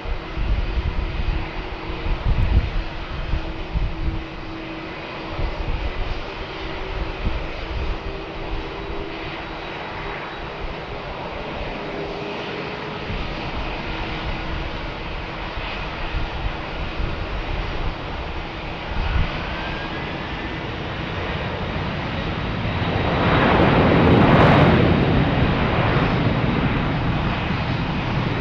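Boeing 747-400's four jet engines at takeoff power: a continuous rushing roar with a low rumble. It swells to its loudest late on, then eases slightly.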